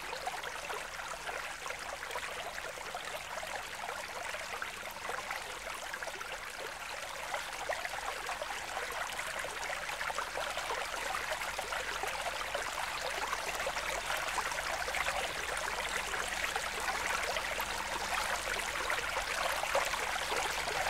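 Steady trickling, bubbling water, growing slightly louder over the stretch.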